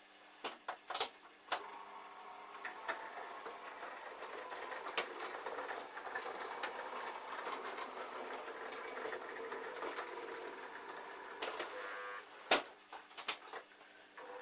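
O gauge model diesel shunter running slowly, its small electric motor and gears whirring steadily as it propels a short rake of wagons along the track. Sharp clicks come in the first second or so and again near the end.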